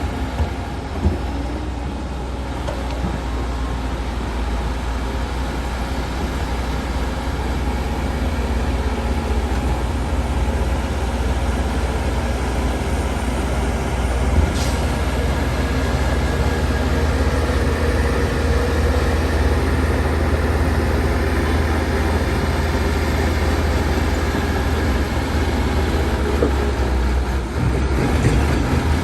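Shantui DH17 C2 bulldozer's diesel engine running steadily under load with a heavy low rumble, with a sharp knock about a second in and another around halfway.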